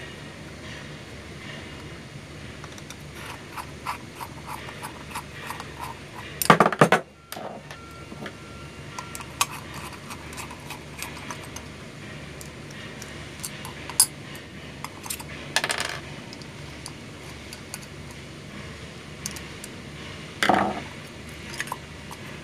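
Screwdriver working the steel bolts out of a rotary compressor's pump assembly: small metallic clicks and scrapes, with a few louder metal clatters, the loudest about a third of the way in.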